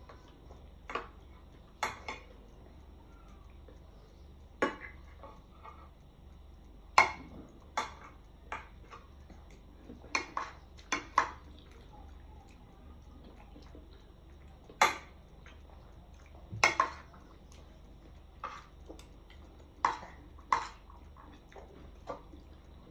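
Metal spoon clinking and scraping against a bowl while scooping rice. The clinks are sharp and short and come irregularly, about one every second, some louder than others.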